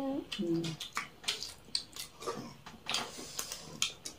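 Eating with the hands: irregular wet smacks and clicks of fingers mixing rice and curry on steel plates, and of mouths chewing.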